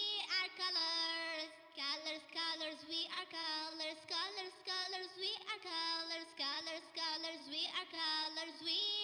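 Light children's background music: a simple melody of held, bending notes in short phrases, with a singing-like tone.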